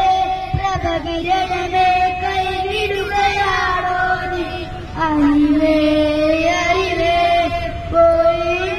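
Children singing a song together, with a woman's voice among them, over the low rumble of the bus.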